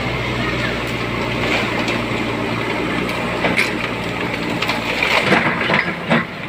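JCB backhoe loader's diesel engine running steadily, with several crunching and cracking sounds in the second half as the machine works the ground.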